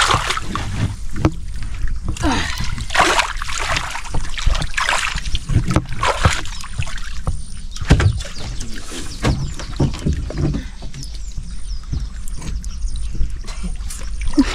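Water splashing and sloshing in irregular strokes over a steady low rumble.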